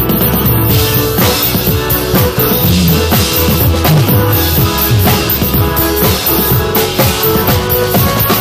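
Drum kit played along to a pop song's recorded backing music, with kick, snare and cymbal strokes over bass and chords, in an instrumental stretch with no singing.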